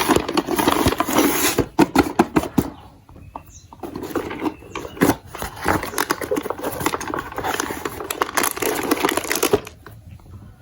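Dense rattling clatter of small hard plastic pieces and marbles, in two long stretches with a quieter gap about three seconds in, stopping shortly before the end.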